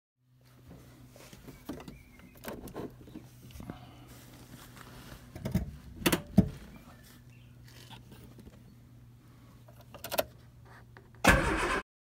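Keys jangling and clicking at the dashboard of an Austin 1300 as it is readied to be started, with scattered knocks over a steady low hum. Near the end a loud half-second burst of noise cuts off suddenly.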